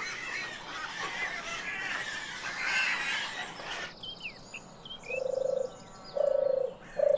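A dense chatter of animal calls that stops abruptly about four seconds in. Then a frog croaks three times, each call a short buzzing trill, with faint high chirps around it.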